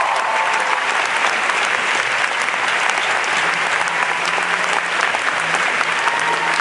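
Audience applauding steadily: a dense mass of many hands clapping.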